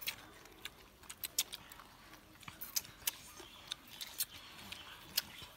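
Eating by hand: irregular sharp clicks and crunches of chewing and of fingers picking through papaya salad and leafy greens on a plastic tarp.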